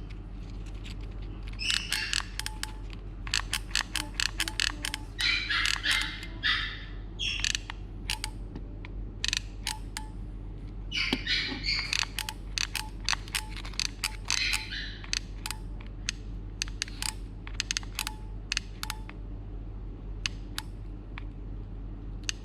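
Irregular sharp clicks throughout, with several short bursts of bird chirping and a steady low hum.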